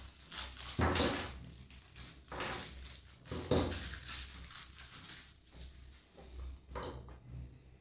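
Knocks and clinks of small metal parts and tools being picked up and set down on a wooden workbench: a few separate strikes, the loudest about a second in and about three and a half seconds in, another near the end.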